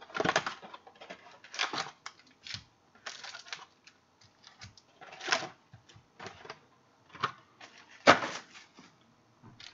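Irregular crinkling, tearing and clicking handling noises as a sealed box of 2014 Sterling football cards is opened, in short separate bursts with quiet gaps between.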